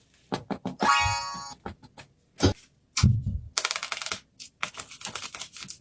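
Quick taps and clicks of paper craft pieces being handled, with a short ringing chime about a second in. From about halfway there is a thump, then crinkly paper rustling.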